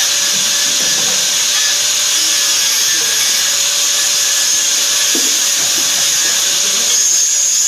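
Handheld angle grinder grinding into a metal bar clamped in a vise: a loud, steady, high abrasive hiss with a constant motor whine underneath.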